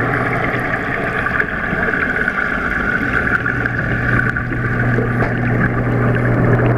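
Fish holding tank's pump running: a steady low hum under a constant rush of churning water.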